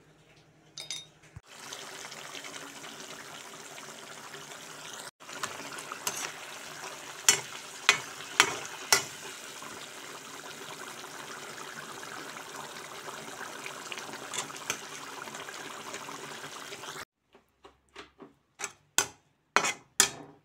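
Mutton gravy bubbling and sizzling in a kadai, a steady hiss with a few sharp clinks of a metal spoon against the pan. Near the end the hiss stops and a spatula knocks and scrapes in the pan a handful of times as the mutton is stirred.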